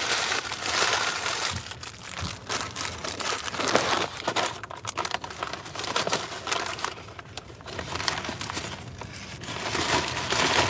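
Food packaging crinkling and rustling in someone's hands, in uneven bursts, as he struggles to open it.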